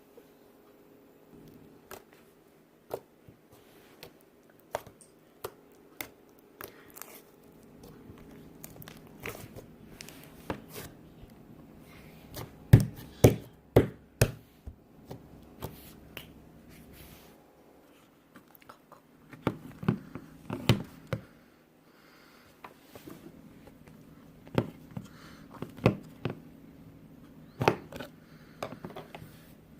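Hands squeezing and pressing slime, making many sharp wet clicks and pops at uneven intervals, with louder rapid clusters of pops around the middle and again later on.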